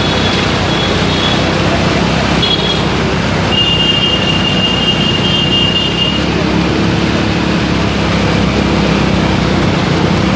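Steady road traffic noise from motor vehicles running along the street, with a few brief high-pitched tones about a second in and again around the middle.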